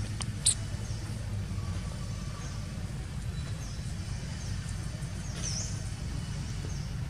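Outdoor ambience: a steady low rumble, with a small bird's short high chirps now and then and one sharp click about half a second in.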